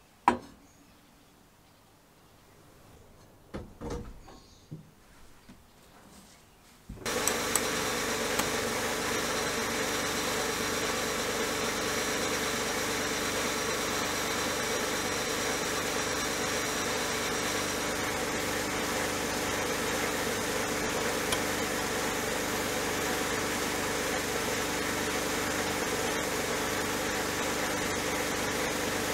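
A sharp click and some handling noises, then about seven seconds in a sandblasting cabinet's blast gun starts and runs with a steady hiss and a hum underneath, as the abrasive strips rust from a kerosene lantern's steel base.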